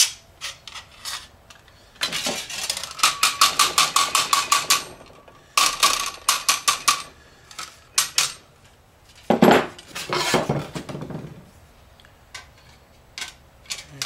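A hand file rasping along the edge of a thin steel sheet from a microwave oven's casing, in quick runs of strokes about five a second, the sheet ringing with each stroke: filing off the slag left along the plasma-cut edge. A single sharp metal clank right at the start.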